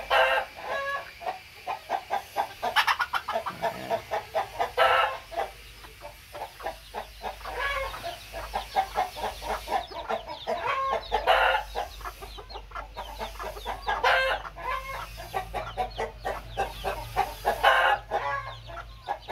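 A flock of bantam chickens clucking and calling continuously: a steady string of short calls broken by several louder, longer calls.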